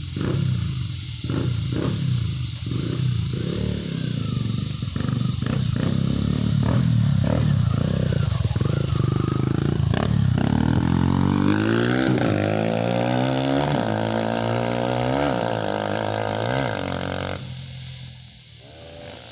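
Motorcycle running through a Prospeed RX series aftermarket exhaust: low revs with short sharp blips, then revved up about ten seconds in and held at high revs for several seconds before dropping off near the end.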